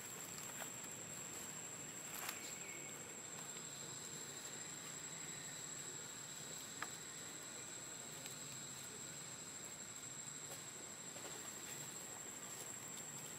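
Insects calling in a steady, high-pitched drone, with a couple of faint clicks, one about two seconds in and one about halfway through.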